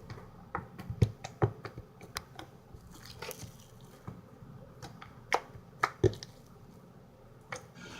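Slime being squeezed and kneaded by hand, giving irregular sharp clicks and pops, the loudest about a second in and again around five and six seconds.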